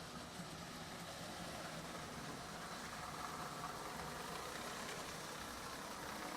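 Marx 1666 toy locomotive running steadily around the track: an even electric-motor whir with the rumble of its wheels on the rails and a faint steady hum.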